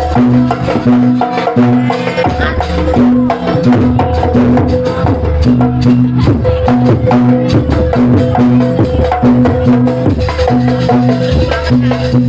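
Jaranan accompaniment music: a gamelan-style ensemble playing a steady, loud rhythmic pattern of repeated pitched gong strokes about twice a second over continuous drumming.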